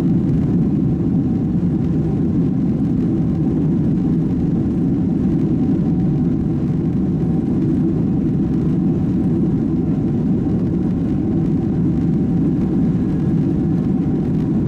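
Boeing 767-300 jet engine noise heard inside the passenger cabin: a loud, steady, deep rumble with a faint steady tone above it.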